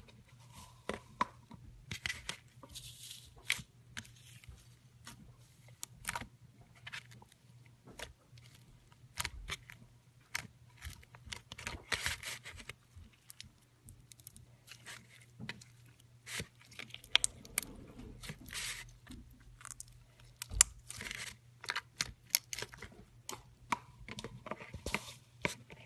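Foam beads being worked into purple slime by hand: irregular sticky crackling, popping and crunching as the bead-filled slime is squeezed and folded. A faint steady low hum runs underneath.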